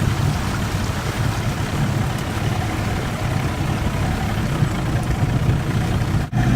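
A boat engine running steadily at idle, with wind and water noise over it. The sound drops out briefly near the end.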